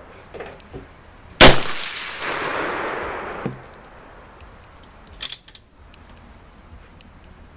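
A single shot from an M1 Carbine in .30 Carbine, a sharp crack about a second and a half in with a ringing tail of about two seconds. A fainter sharp report follows near the end.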